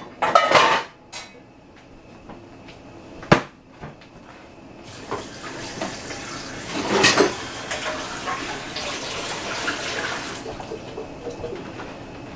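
Pots and pans clattering, with a sharp knock, then a kitchen tap running for about five seconds as a frying pan is rinsed out.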